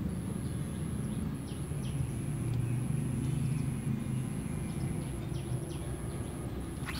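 Outdoor ambience by a pond: a low engine hum from a distant vehicle swells a few seconds in and then fades. Faint short bird chirps and a steady high-pitched whine sound over it.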